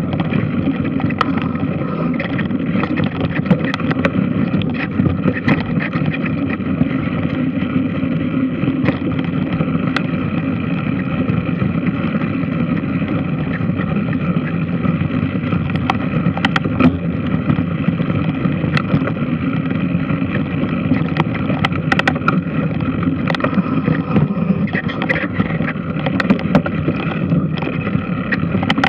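Large washing machine running: a steady mechanical rumble with scattered light clicks and knocks.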